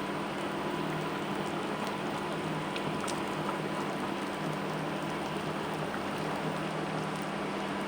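A pot of chicken curry in coconut milk simmering, a steady fine crackling hiss over a faint low hum.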